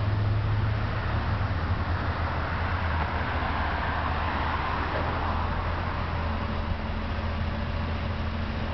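New Flyer Xcelsior XN40 city bus's natural-gas engine idling at a stop with a steady low hum, a wider hiss swelling for a few seconds in the middle and a faint steady tone joining about six seconds in.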